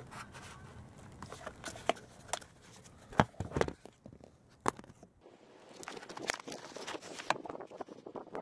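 Scattered light clicks and knocks, then soft rustling, from handling and movement around a car's cargo area.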